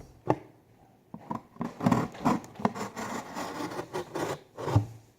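Knife cutting through the side of a box: repeated short scraping strokes at an uneven pace, starting about a second in.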